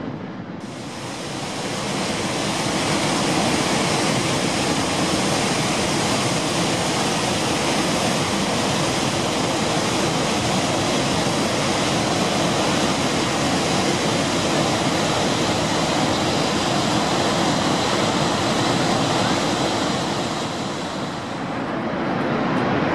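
Steady rushing of the Horseshoe Falls at Niagara, a dense even wash of falling water that dips briefly near the end.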